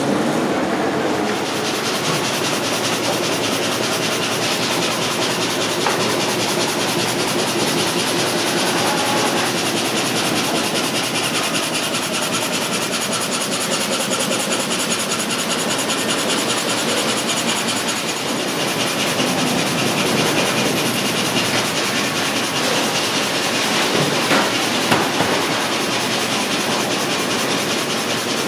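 Machinery of an Esterer frame saw line running in a sawmill: a steady mechanical clatter with a fast, even rhythm, and a couple of louder knocks near the end.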